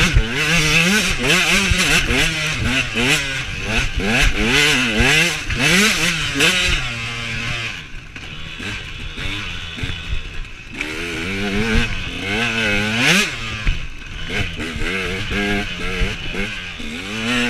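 Husaberg TE125 two-stroke enduro motorcycle engine being ridden hard, its pitch rising and falling again and again with throttle changes and gear shifts. It eases off and goes quieter about eight seconds in, then revs up again.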